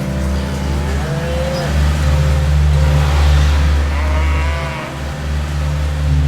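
Cattle mooing in long, low, drawn-out calls.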